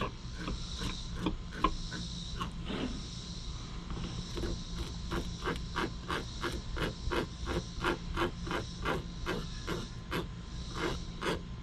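Fork scraping the scales off a whole white perch: short rasping strokes that settle into a steady rhythm of about three a second partway through.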